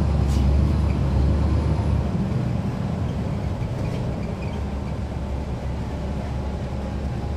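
Caterpillar C13 ACERT straight-six diesel of a NABI transit bus, heard from on board as a steady low rumble, a little louder for the first two seconds and then easing off. Two short clicks or rattles sound, one right at the start and one about four seconds in.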